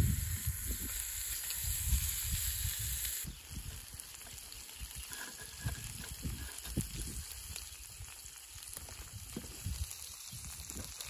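Lamb chops sizzling in a frying pan on a rocket stove, the hiss stronger for the first three seconds and then quieter, over a low rumble.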